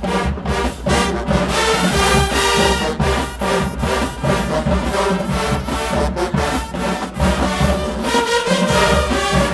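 HBCU-style marching band playing a loud brass number over drums, trombones and trumpets prominent, with a steady driving beat.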